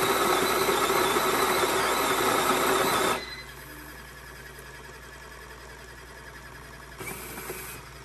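SPINN Pro coffee maker's motor running with a steady spinning noise, cut off suddenly about three seconds in, leaving a faint hum. A second, shorter and quieter burst of machine noise comes near the end.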